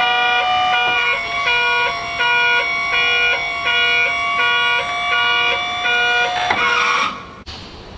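Electronic background music: held notes under a pulsing, repeating chord pattern, cutting off suddenly about seven seconds in.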